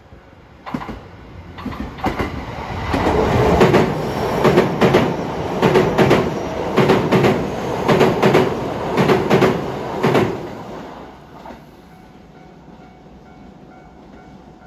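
JR West 227 series six-car electric train crossing an open-deck steel girder bridge: rhythmic clickety-clack of the wheels over the rail joints, the knocks coming in pairs about a second apart. It builds up over the first few seconds and fades away after about ten seconds as the last car passes.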